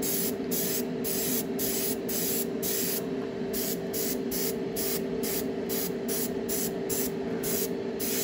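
Iwata Neo dual-action airbrush spraying gloss coat in short hissing bursts, about two a second, over a steady low hum.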